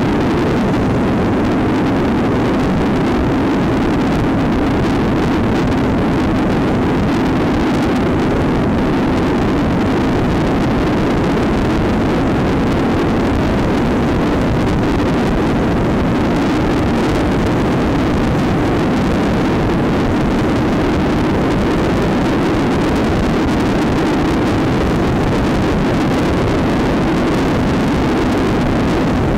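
Trail motorcycle engine running at a steady cruise, with wind rushing over the microphone.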